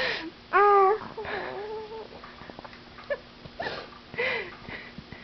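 A baby's sharp catching breaths and short pitched 'ah' sounds: the build-up of a sneeze that does not come. The loudest is a drawn-out 'ah' about half a second in, with smaller gasps around three and four seconds.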